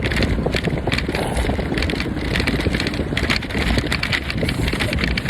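A Lime rental electric bike being ridden, rattling continuously over the road surface, with wind buffeting the microphone.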